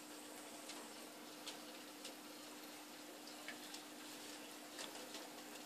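Faint steady low hum with scattered light ticks over a soft background hiss.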